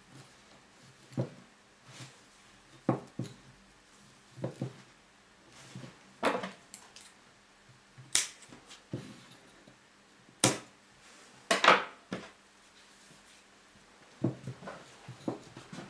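Irregular small clicks, knocks and rustles of hands handling a raft of thin sticks lashed with yarn on a wooden tabletop, including sharp snips of scissors cutting the yarn.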